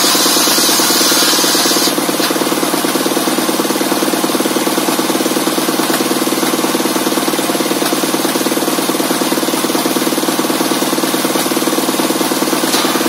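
Engine-driven bench circular saw: a rip cut through a meranti board ends about two seconds in, then the blade spins free with the steady hum of the engine that drives it, and a new cut begins right at the end.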